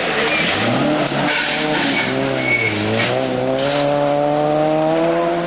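Rally car engine revving hard, its pitch climbing, dropping back near the middle, then climbing steadily again as the car accelerates, with a couple of brief tyre squeals in the first half.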